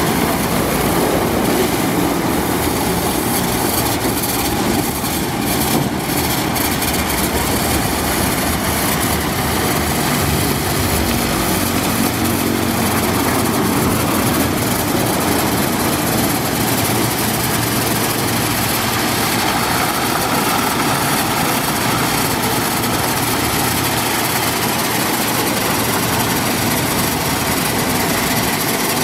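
Ceccato Aries rollover car wash in its brush pass: large nylon brushes spinning against a car's bodywork as water sprays, over the steady hum of the gantry's motors.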